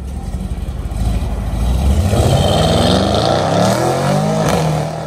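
Mercedes-AMG GT63 S's twin-turbo V8 with a decat exhaust accelerating hard away, its note climbing with the revs, with a sharp crack near the end.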